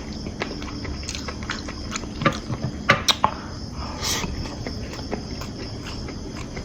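Spoon and fork clicking and scraping on a plate while eating fried rice: irregular sharp clicks, a cluster of louder ones about three seconds in and a short scrape soon after, over a steady high-pitched background drone.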